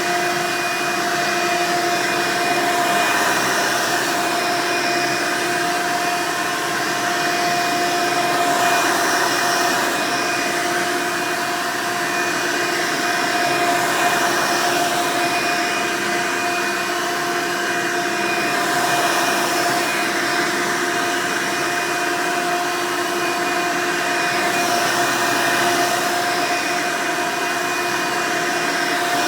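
Hoover Elite upright vacuum cleaner running steadily, its motor giving a constant whine over the rush of air, with the hiss swelling and easing a little every few seconds.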